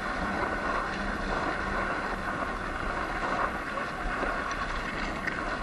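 Sur-Ron Light Bee electric dirt bike being ridden through soft sand: a steady hum of motor and tyres mixed with wind on the microphone.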